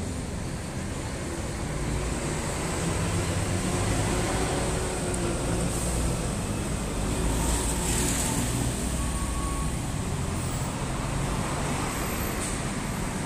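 Road traffic on a busy city main road: a steady rumble of passing cars and heavier vehicles, growing louder a few seconds in, with a brief hiss about eight seconds in.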